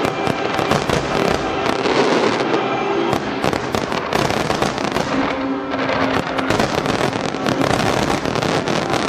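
Fireworks display: many aerial shells bursting in a dense, continuous barrage of overlapping bangs.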